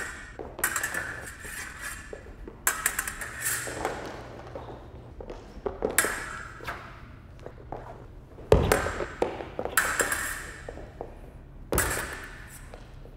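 Steel fencing blades clashing in short flurries of sharp, ringing clicks, with gaps between the exchanges. Two of the flurries, one past the middle and one near the end, open with a heavy thud.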